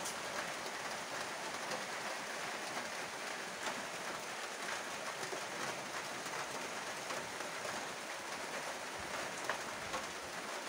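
Steady monsoon rain falling: an even hiss dotted with many small drop ticks, constant in level throughout.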